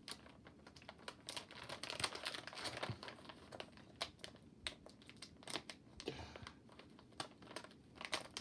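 Plastic Black Forest gummy bear bag crinkling and crackling in irregular bursts as hands twist and pull at it, trying to tear open a wrapper that won't give.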